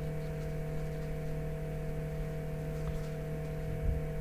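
Steady electrical hum with a few faint handling ticks and a soft low bump near the end.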